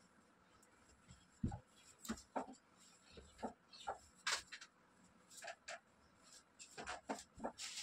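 Irregular rustles, scrapes and soft thumps of someone moving about on a bed while tidying the bedding, with a low thump about one and a half seconds in.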